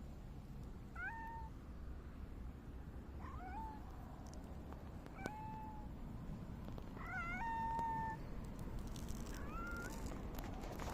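Grey mackerel tabby cat meowing about five times, short rising meows a second or two apart, one of them held longer.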